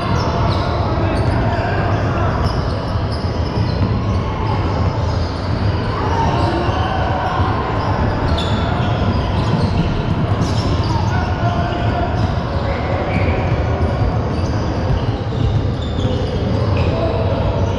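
A basketball bouncing on the court amid steady, indistinct voices of players and spectators.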